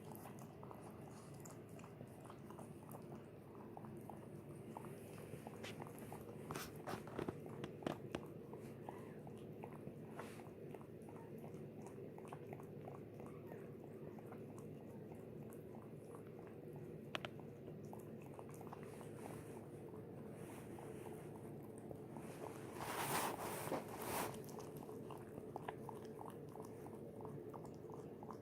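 A mother dog licking and chewing at a newborn puppy, with faint, irregular wet clicks and smacks. There are two short louder spells, one about a quarter of the way in and one near the end.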